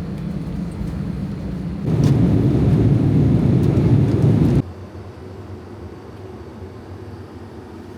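Airliner lavatory vacuum toilet flushing: a loud rushing suction that surges about two seconds in and cuts off suddenly a little past halfway, leaving the steady hum of the aircraft cabin.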